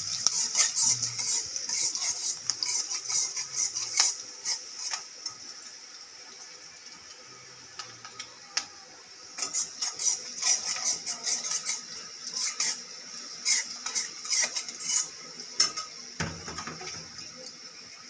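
A metal spatula scraping and clinking against an aluminium kadai while onions and spices fry in oil, with a frying sizzle that is strongest in the first few seconds. The clinks come thick and irregular, ease off for a few seconds in the middle, then pick up again.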